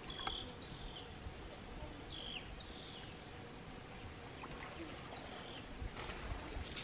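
A bird calling with short, hooked chirps repeated several times, over a low, steady outdoor background noise; a few soft crackles near the end.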